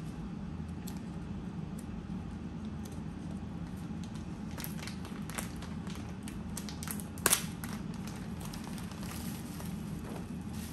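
Plastic packaging and bubble wrap crinkling and rustling in the hands as small parts are unwrapped, with scattered crinkles and one sharp snap about seven seconds in. A steady low hum sits underneath.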